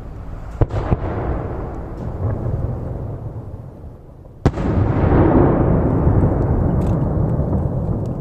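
Aerial firework shells bursting: two sharp bangs in quick succession just under a second in, then a louder single bang about four and a half seconds in. Each is followed by a long rolling rumble of echo.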